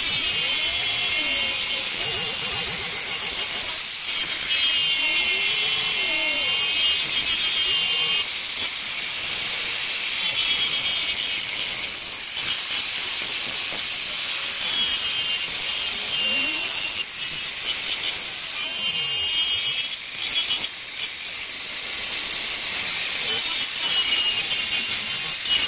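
Handheld angle grinder running with a polishing pad pressed against the edge of a granite slab, the pad grinding and rubbing along the stone. The noise is steady and loud, with a pitch that sweeps up and down now and then.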